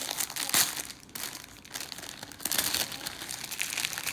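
Plastic packaging crinkling and rustling in hands as a package is opened, loudest about half a second in, quieter for a moment, then busier again near the end.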